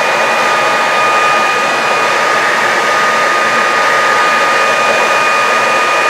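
Cecotec Conga Rockstar 10000 Nebula cordless stick vacuum running steadily on power level 2: a steady rush of air with a high motor whine held at one pitch.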